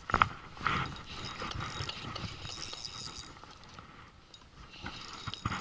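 Fishing reel being worked on a squid-jigging rod: a run of fast mechanical clicks from the reel, with a couple of sharp handling knocks near the start and again near the end.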